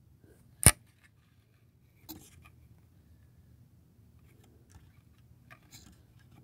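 Handling noise from the camera being adjusted: one sharp click about two-thirds of a second in, then a few faint rustles and light taps.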